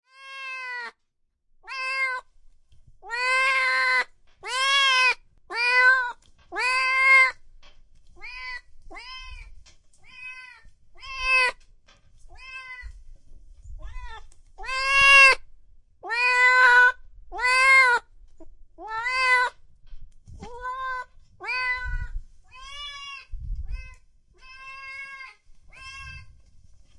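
Kitten meows, one after another at about one a second, each call rising and then falling in pitch. The calls are loudest in a run a few seconds in and another just past the middle.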